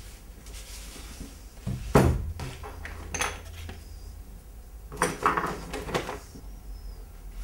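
Hard objects knocked and clinked on a painter's work table: one sharp knock about two seconds in, a light click a second later, then a short run of clinks around five to six seconds in, over a steady low hum.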